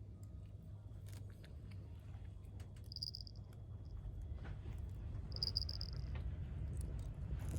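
A cat chewing napa cabbage leaves, with many small crunching clicks over a low purring rumble that grows louder. Two short high beeps sound about three and five and a half seconds in.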